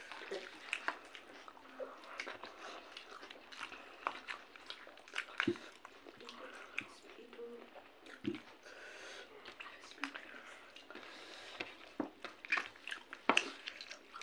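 Close-up eating sounds: wet chewing and lip-smacking, with squelches of rice and curry being mixed and scooped by hand, heard as irregular sharp smacks and clicks.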